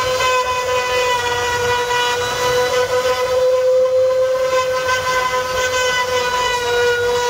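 Trim-router spindles on a multi-head CNC wood router running while cutting into a wooden board: a steady high-pitched motor whine that wavers slightly in pitch, over a low rumble.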